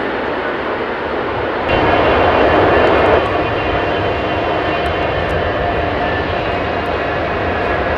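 Airbus A380's four Engine Alliance GP7200 jet engines roaring with a faint whine as the aircraft rolls out on the runway after landing. About two seconds in the roar turns louder, then drops back abruptly a second and a half later.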